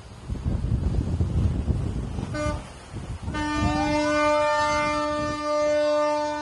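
A vessel's horn, starting about three seconds in and then held steady, with a siren tone over it that rises and then slowly falls, the kind of signal a patrol boat sounds to order a ship to stop. Before it, wind and the low rumble of the boat running at sea.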